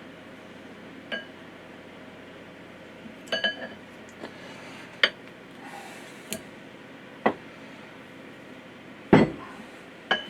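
Irregular metal clinks and knocks from hydraulic cylinder parts and hand tools being handled during a seal replacement, about seven in all, some ringing briefly. The loudest is a heavier knock near the end.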